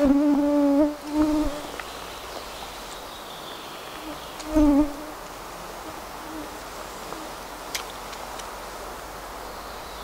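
A flying insect buzzing close past the microphone three times, loud and low-pitched, with the pitch bending as it passes. Under it is the faint steady rush of the stream, and there is a single sharp click about three quarters of the way through.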